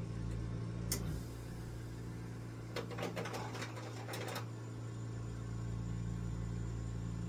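Chewing crunchy breaded fried clam strips: a quick run of crackling crunches about three seconds in, after a single click about a second in, over a steady low hum.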